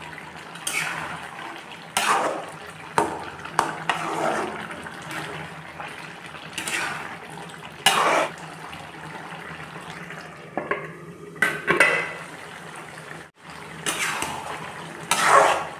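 Spatula scraping and clattering against a wok while stirring a simmering curry, in irregular strokes over the steady bubbling of the pot.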